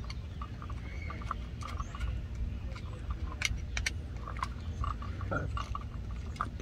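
Screwdriver loosening the terminal screws of a GFI outlet to free its wires: scattered small metal clicks and scrapes over a steady low rumble.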